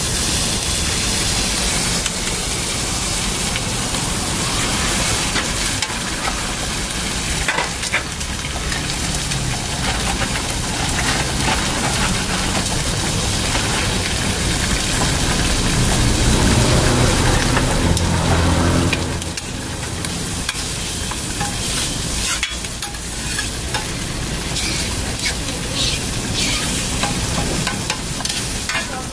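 A meat patty, a hot dog and a fried egg sizzling in oil on a flat-top griddle, a steady frying hiss. A low rumble swells for a few seconds past the middle, and metal spatula and tongs clack on the griddle near the end.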